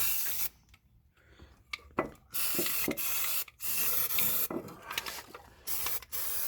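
Aerosol spray-paint can spraying in four short bursts of hiss, with brief pauses between them.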